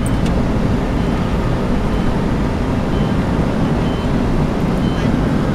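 Steady road noise heard from inside the cabin of a moving car: tyre and engine rumble.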